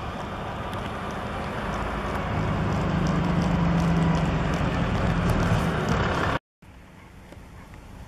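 Tractor engine running steadily under load while pulling a plough, a low hum that swells louder a couple of seconds in. About six seconds in it cuts off abruptly and gives way to a much fainter background.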